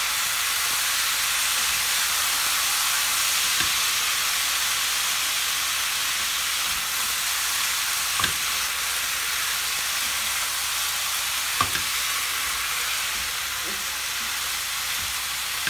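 Chicken and vegetables sizzling steadily in a hot frying pan as they are stir-fried, with the spatula knocking sharply against the pan a few times.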